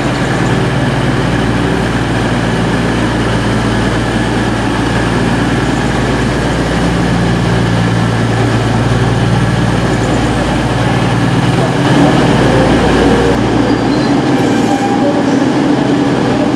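East Midlands Trains Class 222 Meridian diesel-electric multiple unit's underfloor diesel engines running with a steady deep hum as the train moves along the platform.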